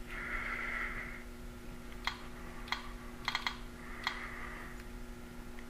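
About half a dozen sharp clicks from a click-wheel iPod being worked, starting about two seconds in, over a faint steady 60-cycle hum from the tube amplifier's transformers as it warms up.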